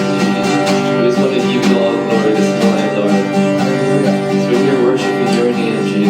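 Instrumental worship music led by strummed guitar, with sustained chords under a steady run of strokes.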